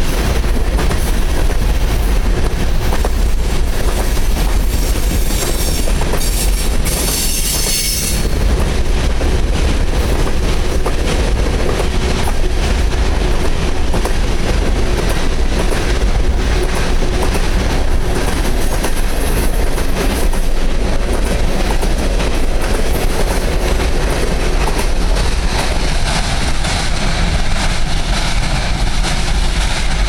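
Freight train of refrigerated boxcars rolling past at close range: a steady clatter of steel wheels over the rails, with a brief high-pitched screech about seven seconds in.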